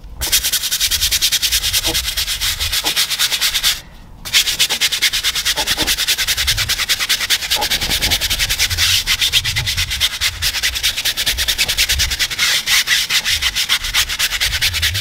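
Stiff-bristled tyre brush scrubbing a wet rubber tyre sidewall coated in tyre cleaner, in rapid back-and-forth strokes that make a loud scratchy rasp, with a brief pause about four seconds in. The scrubbing is lifting road dirt off the tyre.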